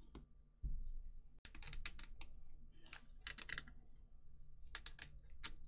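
Light, irregular clicks and taps of hard plastic statue parts being handled and fitted together, several a second, with a soft thump a little under a second in.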